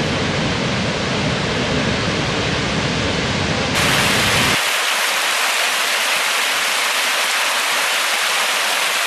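Steady, full rushing roar of a large waterfall. About four seconds in it changes to a thinner, brighter hiss of rushing water with the deep rumble gone.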